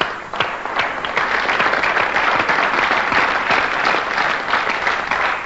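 Audience applauding: a few separate claps that fill out within about a second into dense, steady clapping.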